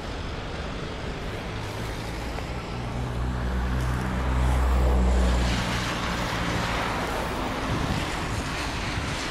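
Steady rush of a flooded river, with wind buffeting the microphone. A low engine hum swells in the middle, loudest about halfway through, then fades.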